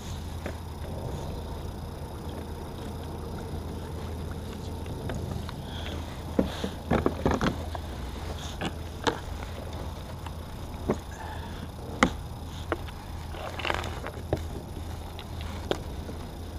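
Scattered clicks, knocks and clatter of fishing gear handled in a plastic kayak while a speckled trout is taken from a landing net and set against a plastic measuring board, over a steady low hum. The knocks come in a quick cluster about halfway through, then spread out.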